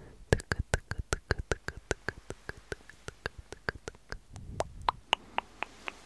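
A rapid run of sharp clicks, about five a second, with a low rumble swelling partway through; the last few clicks are higher in pitch.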